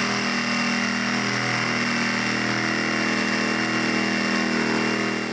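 Jigsaw fitted with a diamond-coated blade cutting through granite tile, its motor running at a steady pitch under a hiss from the cut. The diamond blade cuts smoothly and is still almost new.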